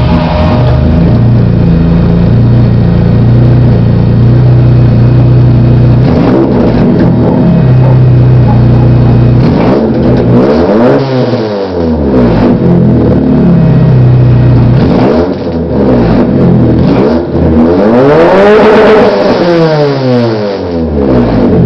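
Chevrolet Vectra A's 2.0-litre eight-valve fuel-injected four-cylinder engine, with a modified cylinder head, idling loudly through a Scilen exhaust that has no resonator, only a muffler and no tailpipe. The throttle is blipped several times, the pitch rising and falling back to idle, with the longest rev near the end.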